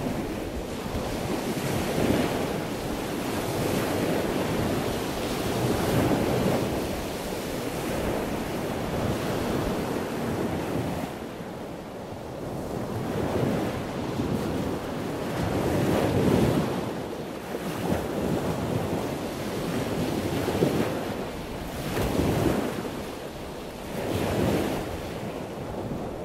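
Surf washing in and out: a steady rush of waves that swells and ebbs every three to four seconds.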